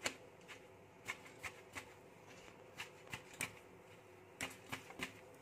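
A freshly cooked parotta crushed and pressed between the hands, its crisp flaky layers crackling in about a dozen short, irregular rustles and taps.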